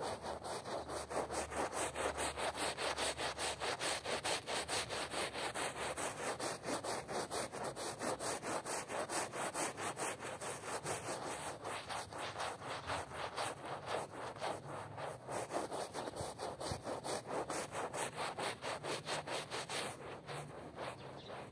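Stiff hand brush scrubbing a soap-foamed rug in fast, even back-and-forth strokes, several a second, a wet rasping rub; the strokes get softer near the end.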